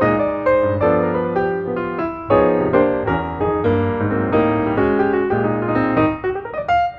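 Background piano music, many notes played in quick succession over a steady lower bass line.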